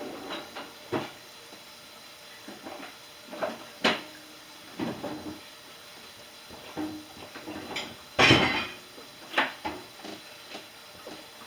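Dishes clinking and knocking together as they are loaded into a dishwasher: a string of short clatters, some briefly ringing, the loudest a longer clatter about eight seconds in.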